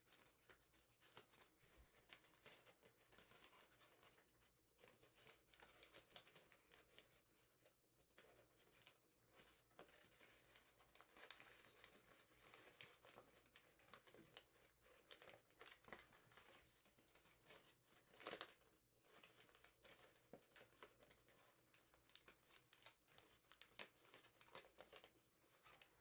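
Faint, irregular crinkling and crackling of a pre-creased sheet of origami paper as it is collapsed along its creases by hand, with a louder crackle about 18 seconds in.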